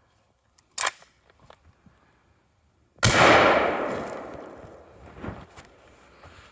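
A single 5.56 rifle shot about three seconds in, sudden and loud, with a long echoing decay over about two seconds. A short sharp click comes a little before the first second.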